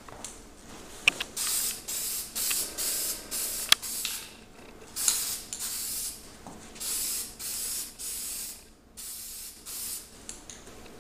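Aerosol can of Brite Touch general-purpose primer spraying in short bursts, about a dozen hisses of under a second each, laying a first coat of primer on a wheel rim. Two sharp clicks come in the first four seconds.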